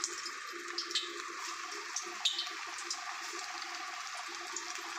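Hot oil sizzling in a steel kadai around pieces of wheat-flour pakoda dough deep-frying, a steady hiss with scattered sharp crackles and pops.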